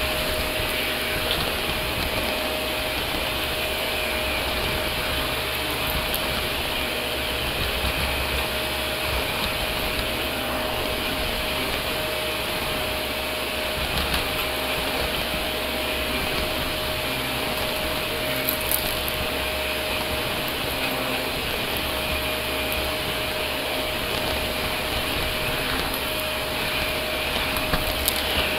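Shark Navigator upright vacuum running steadily over a hardwood floor, a constant whine over its airflow noise, with a few brief clicks.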